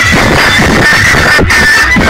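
Music played very loud through a car sound system, with heavy bass pulses repeating under a dense, saturated top.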